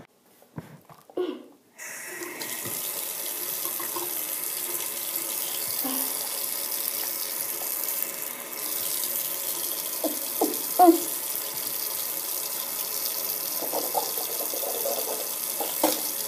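Bathroom sink faucet turned on about two seconds in, water then running steadily into the basin and a plastic cup, briefly dipping about eight seconds in.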